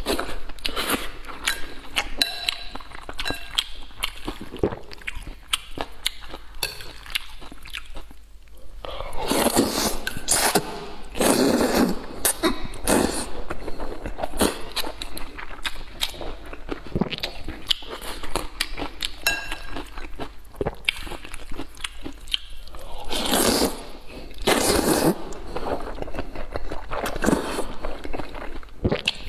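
Close-miked eating: a man chewing and slurping wide noodles with braised pork, with wet mouth clicks throughout. There are longer, louder slurps about nine seconds in and again near the end.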